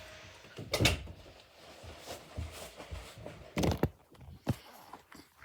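A handful of knocks and thuds, the loudest about a second in, a double knock just past three and a half seconds and a sharper one soon after.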